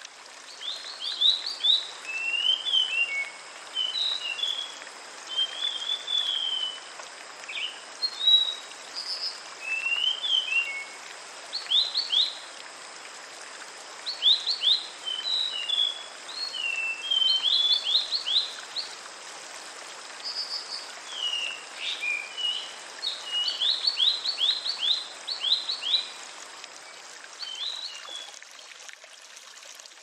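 Songbird song of quick chirps and short falling notes over the steady rush of flowing water; the birdsong stops near the end.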